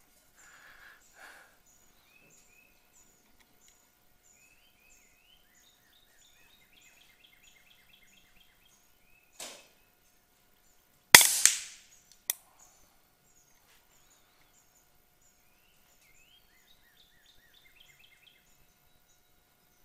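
A single shot from an LCS SK-19 .22 air rifle about eleven seconds in, a sharp crack that dies away quickly, followed about a second later by a short sharp click. Birds sing quietly throughout, and there is a faint knock shortly before the shot.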